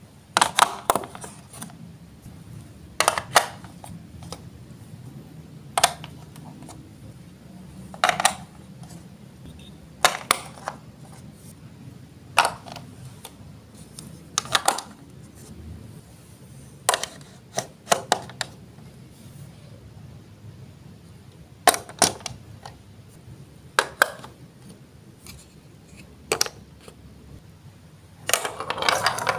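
Hard plastic Lego Duplo track pieces and bricks set down and pressed onto a plastic baseplate: a sharp click or clack about every two seconds, each one separate, with a longer, denser clatter of plastic near the end.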